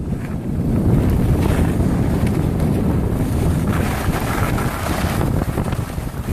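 Wind buffeting the microphone of a camera moving fast down a ski slope, a steady heavy rumble. Mixed in is the hiss of edges scraping over the snow, strongest about four to five seconds in.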